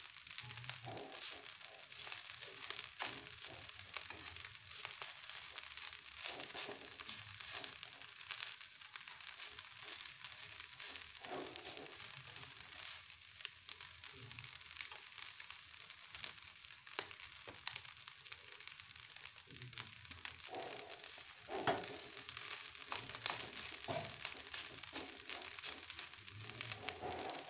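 Fried rice sizzling and crackling in a wok over a gas flame, a steady fine crackle, with a few sharper knocks and scrapes of a spatula in the pan near the end.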